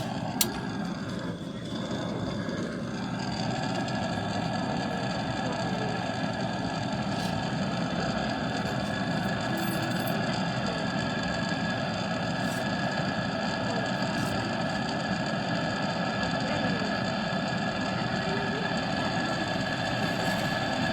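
A machine running with a steady hum and several steady tones, with one sharp click about half a second in.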